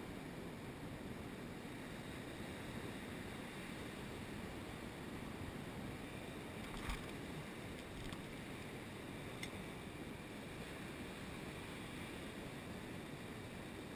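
Surf breaking and washing steadily over a rocky reef flat. A sharp knock comes about seven seconds in, and a fainter click a few seconds later.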